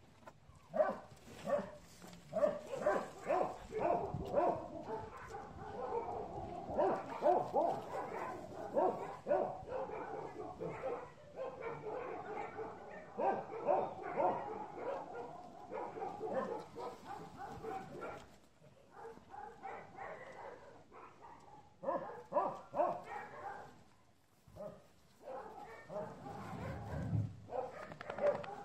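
A dog giving many short yips and whines in quick runs, with a couple of brief lulls in the second half.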